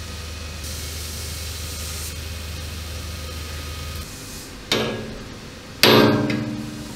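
Hammer blows on a steel chisel set against the rusted steel frame of a tank's driver's vision block, working to knock it loose. Two sharp metallic strikes about a second apart, the second louder, each ringing and dying away, after a few seconds of steady low hum.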